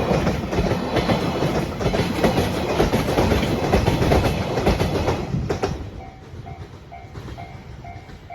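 Container flatcars of a JR Freight train rolling past with a clickety-clack over the rail joints, then the last car clears about six seconds in and the rolling noise drops away. After that the level crossing's warning bell is heard ringing, a repeating two-tone ding about twice a second.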